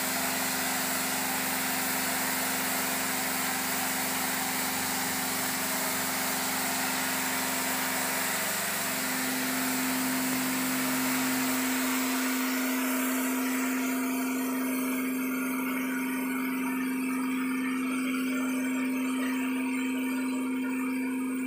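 Gravity-feed paint spray gun hissing as it sprays onto a wall, driven by an air compressor running with a steady hum. The hiss thins out about twelve seconds in, leaving mostly the compressor's hum.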